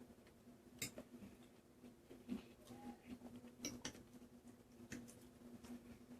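Faint scattered clicks of a fork against a plate during eating, four or five over a few seconds, over a low steady hum.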